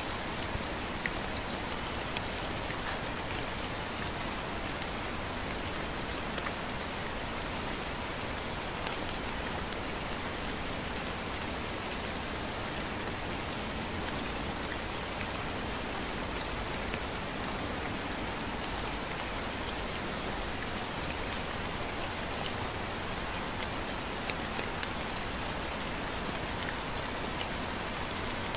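Steady light rain: an even, gentle hiss with scattered individual drops ticking close by.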